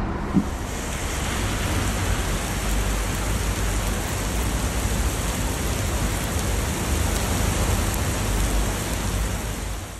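Heavy rain pouring down onto a street and pavement: a steady hiss of rain hitting the ground.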